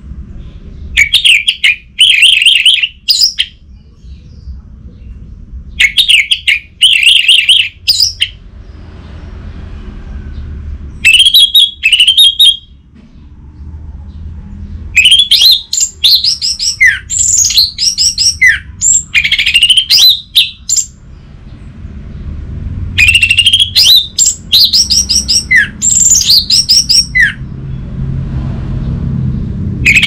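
Orange-headed thrush singing in five bursts of rapid, trilled and slurred whistled phrases separated by short pauses, over a steady low background hum.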